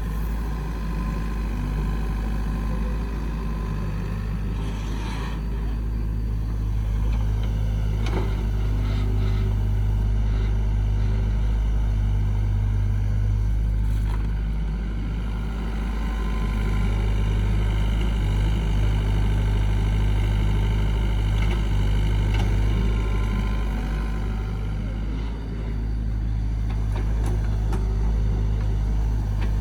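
A heavy engine running steadily with a constant low rumble.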